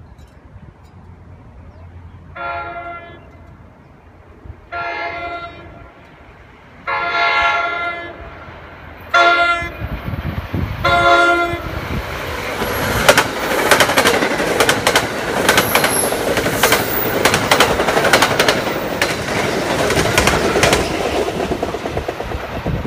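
Nathan K5LA air horn on a New Jersey Transit Comet cab car sounds five chords as the commuter train approaches: three longer blasts, the third the longest, then two short ones. The train then passes close by, its wheels clicking over the rail joints over a steady rolling rumble.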